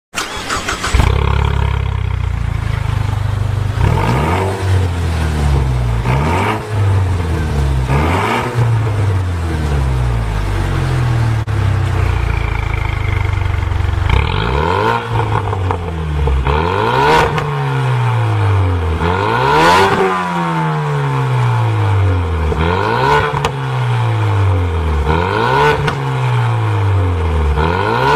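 Ford Mustang 2.3 EcoBoost turbocharged four-cylinder revved in repeated short throttle blips through a Fi Exhaust valvetronic catback with a 200-cell sport cat downpipe, each rev rising sharply and falling back more slowly. The exhaust valves are closed in the first half and open from about halfway.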